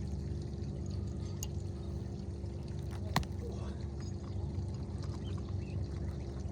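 A steady low mechanical hum, with one sharp click about three seconds in.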